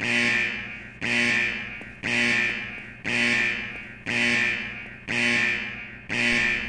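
An alarm-like ringing tone sounds about once a second, seven times, each pulse starting sharply and fading before the next, as a tense soundtrack effect.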